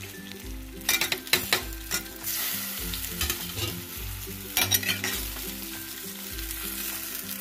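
A metal spatula stirring and tossing steamed rice-flour balls through a sesame and mustard-seed tempering in a stainless steel pan, with a light sizzle of hot oil. Sharp clinks and scrapes of the spatula against the pan come about a second in, near two seconds and again around five seconds.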